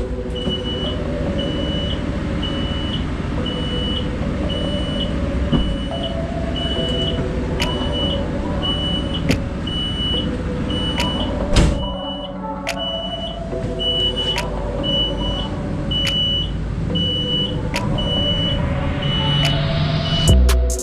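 A truck engine running steadily, with a short high electronic beep repeating evenly, about four beeps every three seconds. A few sharp clicks, the loudest about halfway through.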